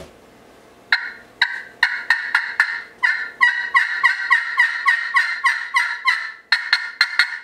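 Freshly conditioned aluminum-surfaced turkey pot call played with a striker: a long run of short, sharp turkey yelps at about four a second, starting about a second in, with a brief break near the end.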